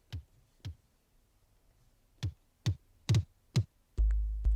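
E-mu MP7 playing single kick-drum samples: six short electronic kicks, each dropping quickly in pitch, then near the end a long, deep bass tone comes in with more hits over it.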